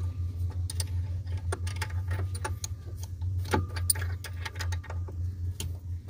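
Irregular sharp clicks and clinks, like small metal parts knocking together, over a steady low hum.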